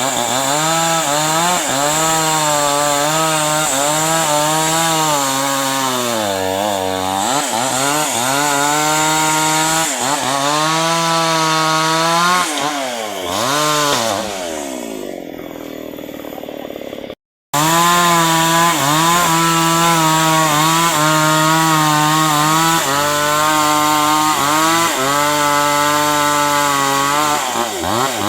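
Chainsaw running at high speed cutting through hard acacia wood, its engine pitch sagging repeatedly as the chain bites and recovering as it frees. About halfway through it drops to a quieter run for a few seconds, cuts off abruptly, then runs again at steady high speed.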